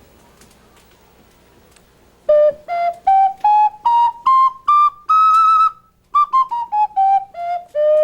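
Clay ocarina playing a scale. After about two seconds of quiet, short separate notes climb step by step to a held high note. They then step back down and end on a long, held low note.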